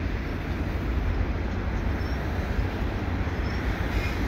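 CP double-stack container train rolling past: the steady, deep rumble of steel wheels on rail as the loaded well cars go by.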